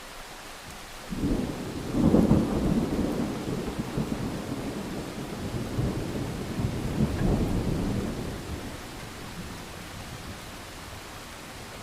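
A thunderclap over steady rain: a sudden low rumble about a second in, loudest just after, swelling again a few seconds later before rolling away to the rain hiss.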